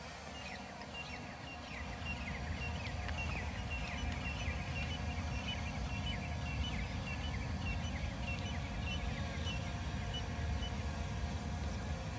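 Two small camera quadcopters, an M3 Max and an F198, hovering: a steady propeller hum with several whining tones. A bird calls over it in a quick run of short, falling notes, about three a second, for most of the stretch.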